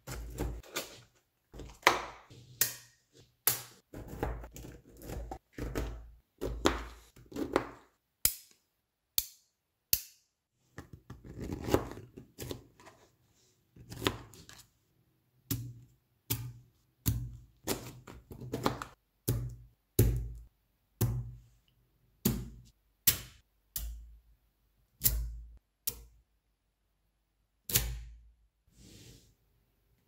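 Neodymium magnet balls clacking and snapping together as blocks and slabs of them are joined, pressed and set down on a table: an irregular run of sharp clicks and dull knocks.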